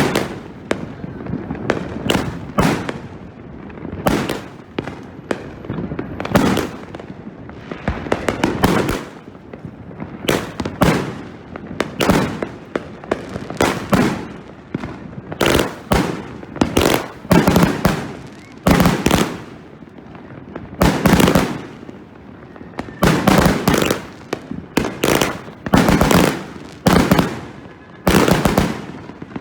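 Two 100-shot salute cakes firing side by side: a rapid, irregular string of loud bangs, often two or three close together, each with a short echo.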